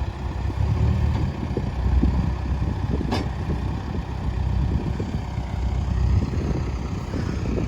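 Case 580 Super N backhoe loader's diesel engine running steadily with a low rumble, with one short click about three seconds in.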